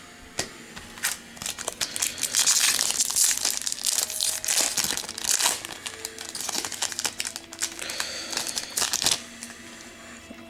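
Foil wrapper of a trading-card pack being torn open and crinkled. It is a dense run of crackles that starts about a second in and stops about a second before the end.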